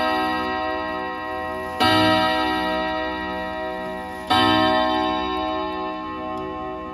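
Eight-rod chime of an original French ODO 54 wall clock on a 101 gong block. Its hammers strike several steel rods together twice, about two and a half seconds apart, the strikes evenly paced. Each chord rings out long and resonant, still sounding from a strike just before.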